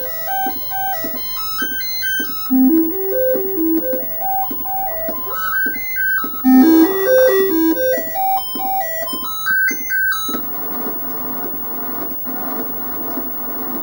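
Commodore 64 diagnostic-cartridge sound test playing through the Philips CM8833 monitor's speaker: electronic beeping tones stepping up and down in a repeated little tune, three phrases in all. About ten seconds in the tune stops and a steady rough buzzing noise takes over.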